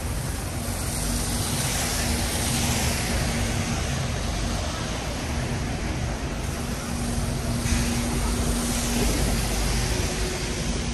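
Busy city street traffic on wet roads: a steady engine hum with vehicles passing, their tyre hiss swelling and fading twice.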